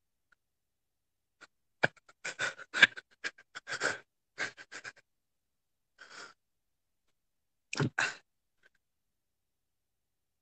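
A man's short breathy sounds close to the microphone: quick gasps and exhalations in several bunches with silence between, the sharpest about two seconds in.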